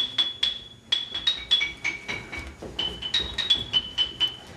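Music: a quick melody of bright, bell-like struck notes, about three a second, each ringing briefly.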